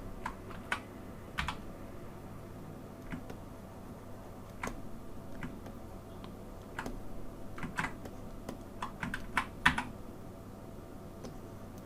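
Computer keyboard keys pressed in irregular bursts, single clicks and quick clusters, with the busiest run near the end.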